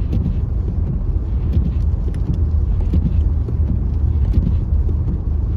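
Car driving on a snowy road, heard from inside the cabin: a steady low rumble of engine and tyre noise, with faint scattered ticks.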